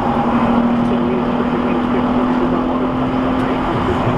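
Steady road and engine noise inside a car cruising at highway speed, about 97 km/h, with a constant low drone.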